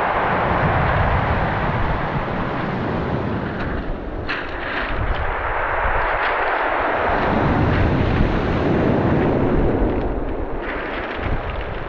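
Sea waves breaking and washing over a pebble beach: a steady surging rush with a deep rumble that swells about two-thirds of the way through. Pebbles clatter about four seconds in and again near the end.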